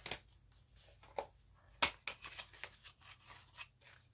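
Cardboard box of a Too Faced Chocolate Gold eyeshadow palette being handled and opened by hand: faint scattered clicks and scrapes of card, the sharpest about two seconds in, with quicker small ones after it.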